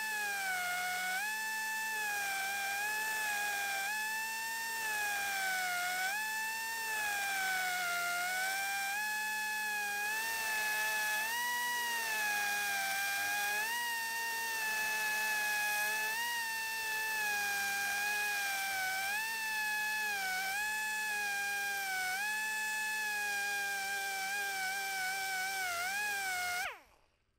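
Dremel rotary tool with a burr grinding steel out of a Peabody rifle's breech block, relieving it to clear a longer .45-70 cartridge. A steady high whine whose pitch sags and recovers every second or two as the burr bites, until it stops near the end.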